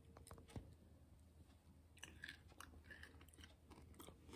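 Near silence: room tone with a few faint scattered clicks and light rustles, a little busier after about two seconds.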